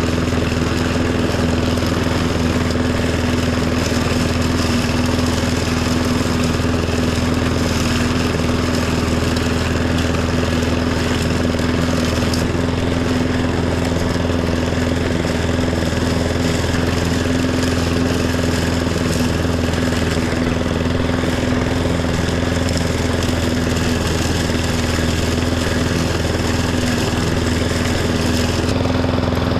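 Riding tractor mower's engine running at a steady speed while mowing, with an even, unchanging hum.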